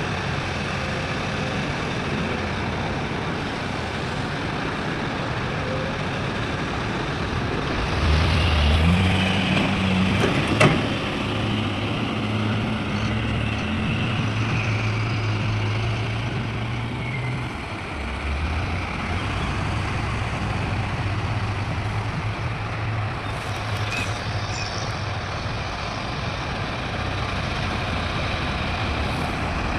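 Heavy diesel machinery running steadily, with the engine working harder for a few seconds about eight seconds in. A sharp click comes near ten seconds, and a few short high hisses come later.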